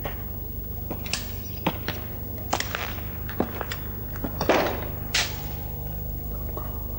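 Boot footsteps on a hard floor: several uneven knocks with a louder scuff about four and a half seconds in, over a steady low electrical hum.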